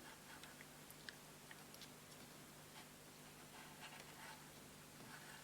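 Near silence: room tone with a faint steady hum and a few faint small ticks.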